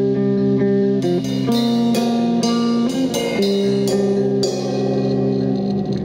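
Live rock band playing: electric guitar and bass holding chords over a drum kit with cymbal crashes. The drums thin out in the second half and the last chord is left ringing.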